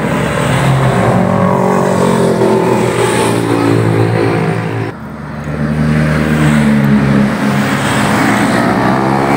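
Motorcycle engines running and revving as bikes move along the street. Loud and continuous, with a brief drop in level about five seconds in.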